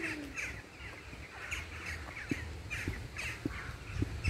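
Crows cawing in a steady run of short, harsh calls, two or three a second.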